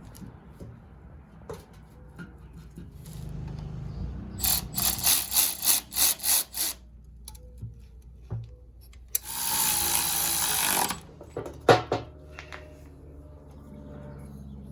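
A power tool run in about seven short bursts over two seconds, followed a few seconds later by a steady hiss lasting about two seconds, with clicks and knocks of parts being handled in between.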